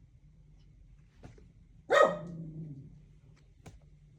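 A single dog bark about two seconds in, dropping in pitch as it fades, with a few faint clicks before and after.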